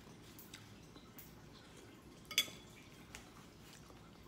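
Metal spoon clinking against a ceramic soup bowl: a few light taps and one sharp, ringing clink about halfway through.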